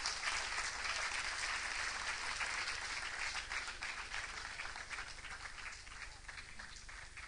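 Audience applauding with many hands, the clapping slowly dying down.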